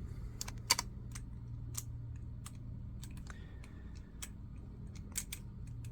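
Irregular light clicks and taps of a metal passage door lever and lock being handled, over a low steady hum.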